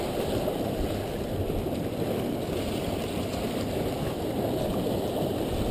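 Steady wind rumbling on the microphone, mixed with surf washing against the rocks of a jetty.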